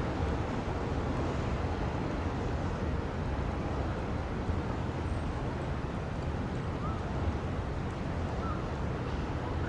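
Wind buffeting the microphone: a steady, flickering low rumble under a faint hiss, with two faint short chirps late on.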